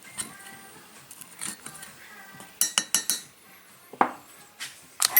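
Small metal parts clinking and tapping against each other and on a hard surface. A few sharp clicks come first, then a quick run of about four just past halfway, then single knocks near the end.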